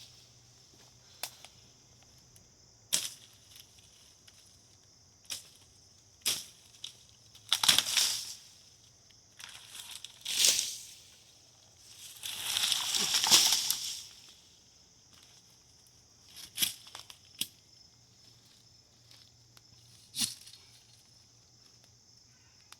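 Dry wood and brush being broken up by hand: a string of irregular sharp snaps of twigs and branches, with a few longer crackling crunches, the longest and loudest a couple of seconds past the middle. A steady high hiss runs underneath.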